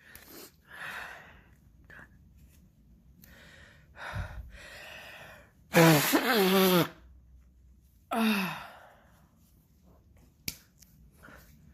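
A woman with a heavy head cold breathing and sniffling, then a loud voiced sneeze about six seconds in, falling in pitch over about a second, followed by a shorter voiced outburst about eight seconds in. A single sharp click comes near the end.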